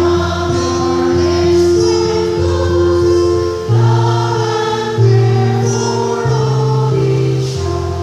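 Choir of women singing together in held notes, several pitches at once, over an instrumental accompaniment with a low bass line that steps from note to note.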